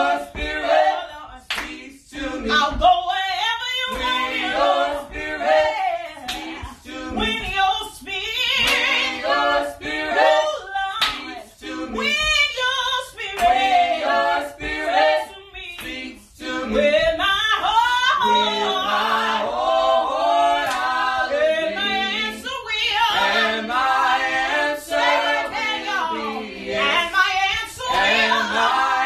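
A small group of voices singing a gospel song a cappella in harmony, without instruments.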